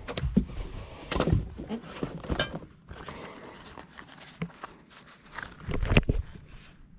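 Irregular knocks, thumps and clatter in a small fishing boat as a hooked striped bass is brought aboard and handled, busiest in the first couple of seconds and again near the end.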